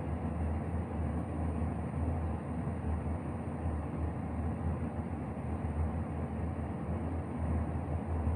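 Steady low hum with a light hiss of room noise and a faint, thin high whine above it, unchanging throughout.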